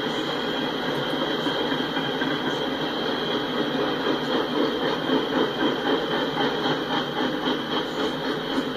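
Freight cars (tank cars and covered hoppers) rolling past: a steady rumble of steel wheels on rail with a thin, steady high whine over it. It grows louder and takes on a pulsing clatter in the second half.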